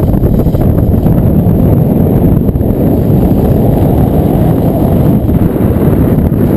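Airflow buffeting the microphone of a body-mounted camera in paraglider flight: loud, steady wind noise, a dense low rumble.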